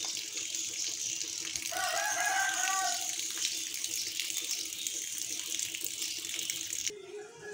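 Steady hiss of light rain falling, with a rooster crowing once about two seconds in. The rain hiss cuts off suddenly near the end.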